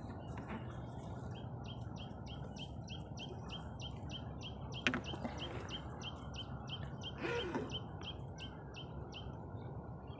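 A small bird calling a long, even series of short high chirps, about three a second, over a steady low rush of wind noise. A single sharp click about five seconds in.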